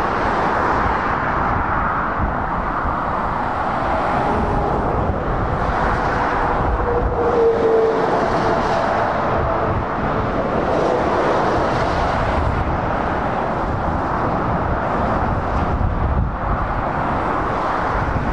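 Road traffic passing on a dual carriageway: heavy lorries, among them Volvo FH and DAF XF tractor units, and a van drive by with a steady mix of tyre noise and diesel engine noise, a little louder about eight seconds in.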